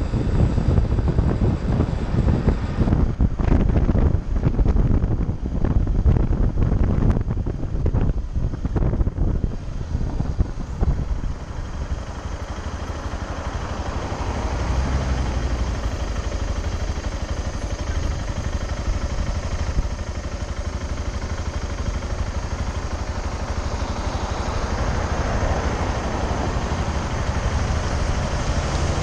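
BMW motorcycle riding at road speed with wind buffeting the microphone, then slowing about halfway through and settling to a steady low engine idle as it stops in traffic.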